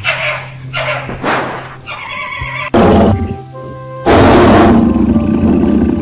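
Animal calls over background music: a few short yelping calls in the first second or so, then two loud, harsh calls, one about three seconds in and a longer one about a second later.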